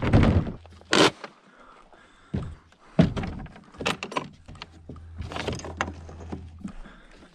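Hands working the clips, straps and fittings on a plastic fishing kayak, giving a string of separate clicks, knocks and rattles, with a low hum underneath at times.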